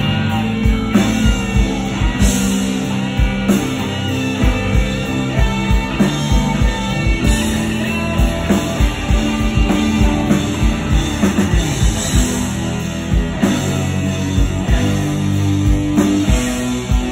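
Live rock band playing: an electric guitar solo over bass and a steady drum beat.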